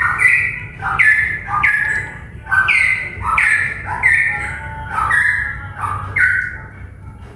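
A cucak pantai, a Papuan songbird, singing loudly in rapid repeated phrases. Each phrase is a short lower note jumping to a higher, slightly falling whistle, coming about every two-thirds of a second, and the song stops shortly before the end.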